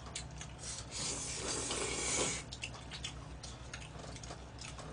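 A person slurping spaghetti noodles in one long, noisy slurp from about one to two and a half seconds in. Short clicks of utensils on plastic food trays run before and after it, over a steady low hum.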